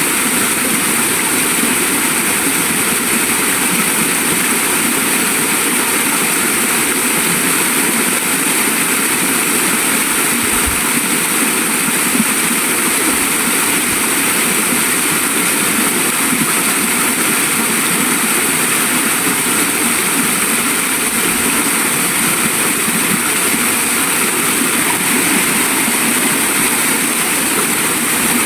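Waterfall: a loud, steady, unbroken rush of falling water.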